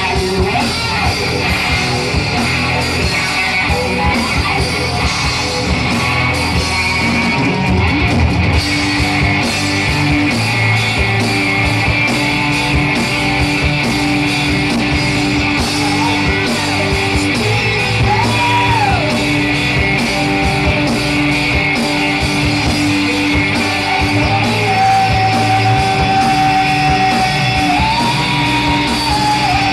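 Rock band playing live: electric guitars, bass and drums, with a voice singing over them and long held notes in the second half.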